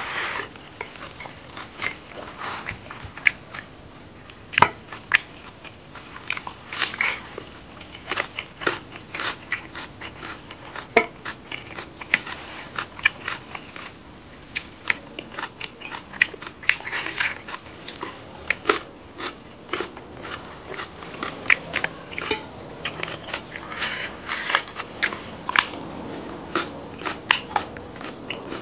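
A person eating pork curry and rice by hand: wet chewing and lip smacks with many short, irregular clicks.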